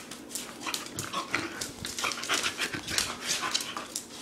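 A dog panting and breathing hard right at the microphone, in quick, irregular breaths.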